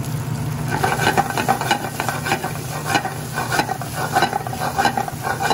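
Penne in Alfredo sauce sizzling in a hot stainless steel skillet as the pan is shaken and tossed on the gas range. From about a second in, the pasta and the pan scrape and clatter several times a second over a steady low hum.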